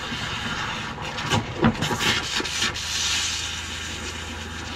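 Boat's electric freshwater pump running with a steady hum while water runs into a small sink, flushing pink antifreeze out of the lines. The plastic drain stopper clatters several times as it is worked by hand, about a second and a half in.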